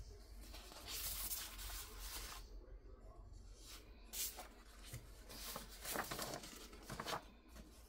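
Sheets of thick patterned scrapbook paper handled and slid over one another, giving a few soft, faint rustles.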